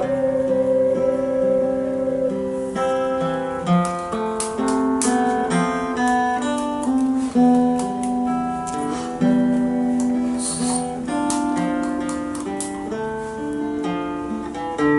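Live ocarina ensemble music: held melody notes over a strummed guitar accompaniment.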